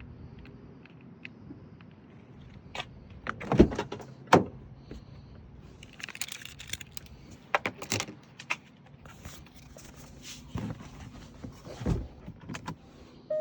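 Keys and car fittings being handled inside a car: scattered light clicks and rattles, with a few sharp knocks.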